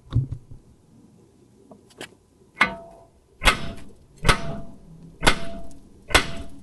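Metal blows on metal, about one a second from a few seconds in, each with a short ringing tone: the loosened last rack-and-pinion mounting bolt being knocked out.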